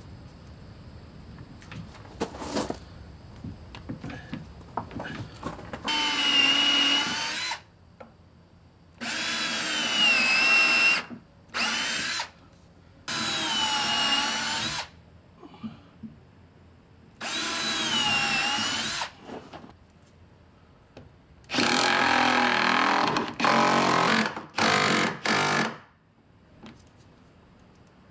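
Cordless drill boring holes up into white oak hull planking in a series of runs of one to two seconds each, its motor whine dipping as the bit bites into the wood. Near the end comes a quicker cluster of shorter, choppier runs.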